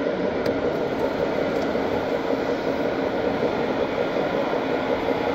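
Scale-model conveyor belt running, carrying chippings up and pouring them into a model tipper trailer: a steady, unbroken rattle.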